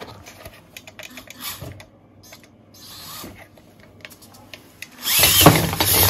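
Small electric RC rock crawler's motor and gears running in high gear, with light clicks as it climbs over metal obstacles. About five seconds in it turns loud: motor whine and clattering as the crawler scrambles over a steel plate.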